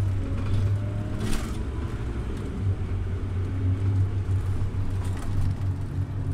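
Scania OmniLink city bus running: a steady low diesel hum, with a brief rattle about a second in.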